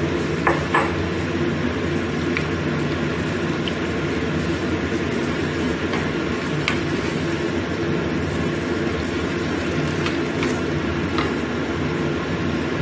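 A wok of chicken and tofu simmering in sauce on a gas stove: a steady rushing noise with a faint low hum. A few light taps of a wooden spatula against the pan come about half a second in, with fainter ones later.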